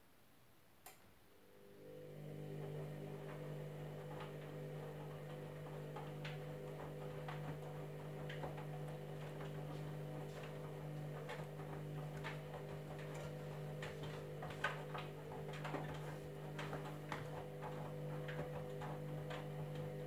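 Candy Grand'O Vita front-loading washing machine turning its drum during a wash: a click about a second in, then the drum motor hums steadily for the rest of the tumble, with irregular ticks and knocks as the wet laundry tumbles. The hum stops near the end.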